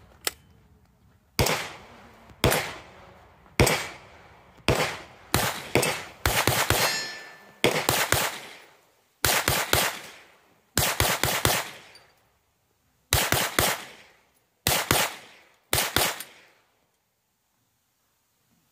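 Spikes Tactical AR9, a 9mm AR-pattern pistol, firing about twenty semi-automatic shots. The first few come about a second apart, then the rest in quick strings of two to five, each shot with a ringing echo.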